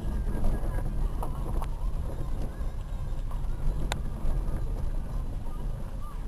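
A Dacia Logan driving down a rough dirt and stone mountain track: a steady low rumble with a few sharp knocks over it.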